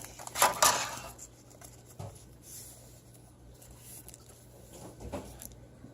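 Rustling and handling of a glass screen protector in its packaging: a short burst of rustling in the first second, then a few faint taps and rustles.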